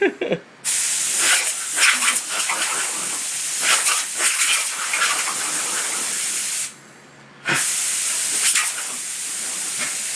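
Compressed air hissing from an air compressor's nozzle in long blasts, cutting off for under a second about two-thirds through, while a dog barks at it.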